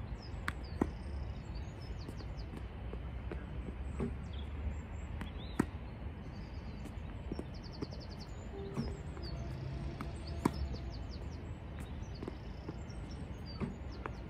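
Tennis racket striking ball machine-fed backspin balls, a sharp pock about every five seconds, with fainter knocks in between. Birds chirp over a steady low outdoor rumble.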